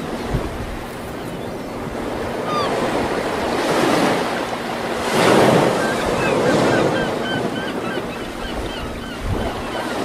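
Ocean surf: waves washing and breaking, swelling loudest about five seconds in, with short high chirping cries over it in the middle stretch.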